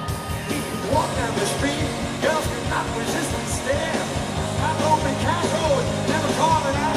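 Rock music from a full band with guitar and drums, and a lead voice singing from about a second in.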